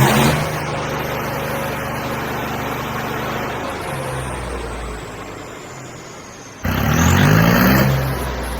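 Diesel tractor engine being revved: it runs on steadily and slowly drops back after a rev, then about two-thirds of the way in the throttle is opened suddenly and the engine climbs in pitch again.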